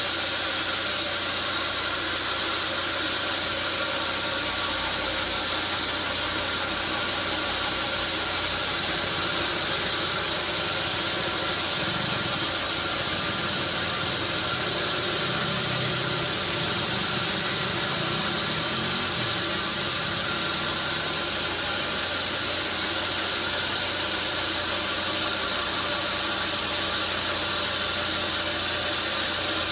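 Sawmill machinery running steadily, a continuous even mechanical noise.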